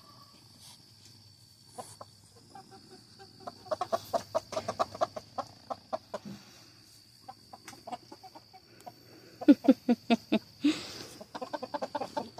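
A flock of chickens clucking in quick runs of short notes, loudest about two-thirds of the way through, with a short harsh burst just before the end.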